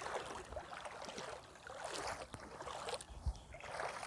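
Shallow seawater lapping and trickling among rocks at the shoreline, with a soft low thump a little after three seconds in.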